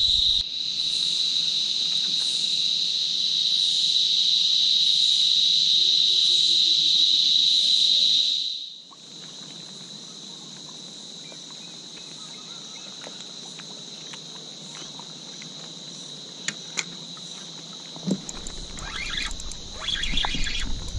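Insects droning steadily in one high, even pitch, loud at first and then abruptly much fainter about nine seconds in. A few light knocks and some low rumble near the end.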